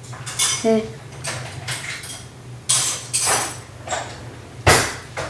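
A series of short scrapes and clatters from handling objects, with a brief vocal sound about a second in and a sharp knock near the end.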